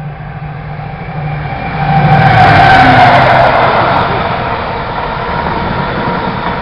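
Freightliner Class 70 diesel locomotive passing, its engine growing louder as it approaches and loudest about two to three seconds in, its pitch dropping as it goes by. The rumble of the loaded container wagons follows.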